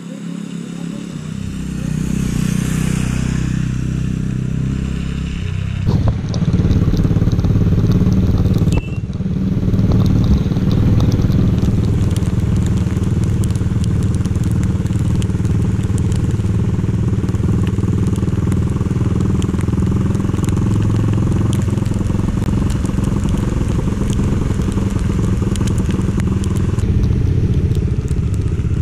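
Bajaj Dominar 400 motorcycle engine running under way, building up over the first few seconds and then holding a steady pull, with a continuous crackling over it.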